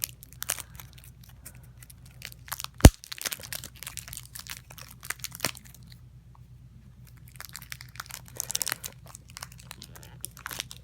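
Card-deck packaging being torn and crinkled open by hand, with scattered rustles and small clicks. One sharp, loud click comes about three seconds in, and a burst of rustling follows near the end.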